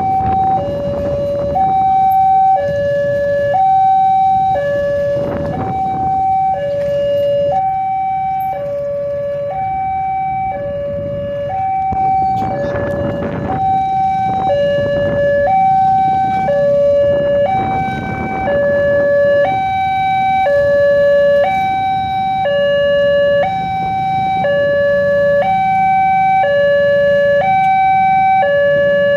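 Railway level-crossing warning alarm sounding a steady two-tone hi-lo pattern, about a second on each pitch, with road traffic idling underneath. It signals an approaching train while the crossing barrier is closed.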